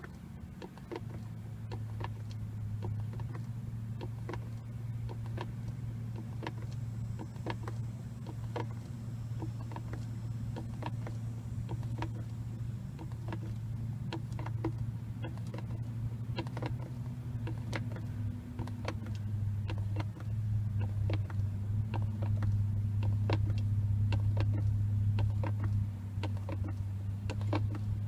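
A hand pump on an oil bottle being worked to pump oil into the generator, giving many short plastic clicks, a few each second. Under the clicks runs a steady low hum that grows louder after about twenty seconds.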